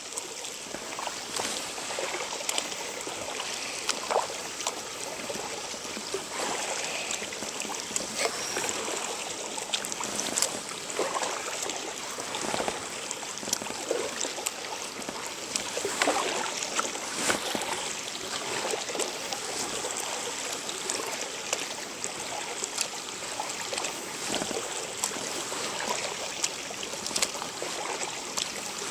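Kayak paddle strokes in calm river water: a steady trickling and splashing of water off the paddle blades, with many small irregular splashes and drips.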